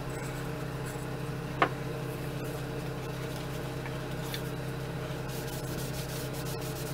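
Cloth rag wiping wood stain onto a wooden rifle stock, a faint rubbing against a steady low hum. One sharp click about one and a half seconds in.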